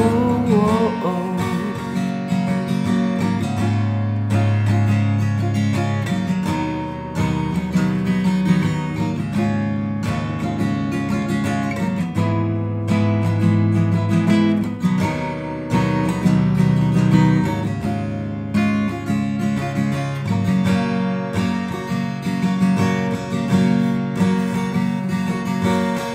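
Instrumental break in a song: acoustic guitar strumming chords that change every couple of seconds, with no singing.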